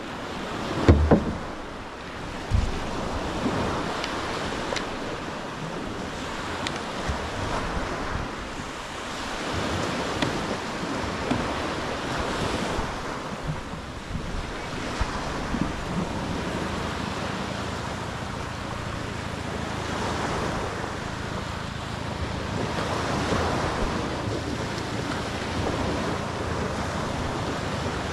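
Small surf breaking and washing up a beach, swelling and easing, with wind buffeting the microphone. A couple of sharp knocks in the first few seconds, the loudest about a second in.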